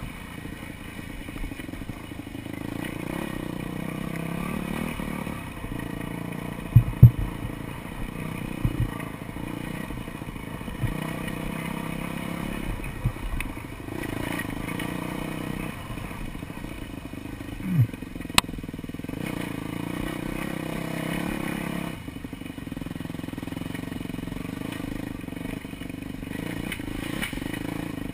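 Dirt bike engine running as the bike is ridden over rough trail, with several hard knocks as it hits bumps, the loudest about 7 seconds in and again near 9 seconds.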